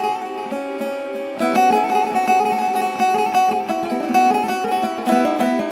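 Instrumental interlude between verses of a sung poem: a plucked string instrument plays a melody, thin at first and fuller from about a second and a half in.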